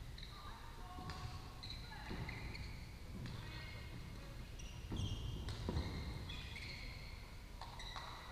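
Badminton rallies on several courts: sharp, irregular racket hits on shuttlecocks, about one a second and loudest around five to six seconds in, with brief high squeaks of court shoes on the mats between them.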